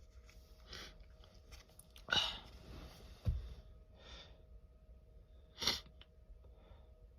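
A man sneezing in a fit brought on by Chhinkni sneezing powder: one sharp sneeze about two seconds in and another, shorter one near six seconds, with breaths in between. A low thump comes just after the first sneeze.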